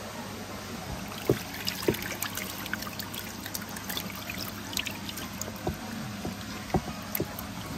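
Water trickling and pouring steadily, broken by many short splashes. The sharpest splashes come about a second in, just before two seconds, and near the end.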